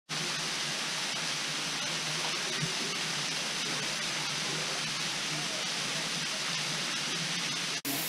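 Steady rushing of a 120-foot waterfall pouring into its pool, an even hiss of falling water with no let-up, broken only by a brief dropout near the end.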